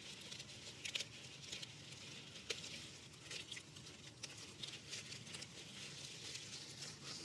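Tender leaf lettuce being picked by hand: faint snaps and rustles of leaves breaking off, as a scatter of soft, irregular clicks.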